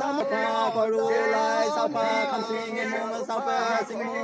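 A man chanting a ritual mantra in a sung, wavering voice, holding long notes between short breaks.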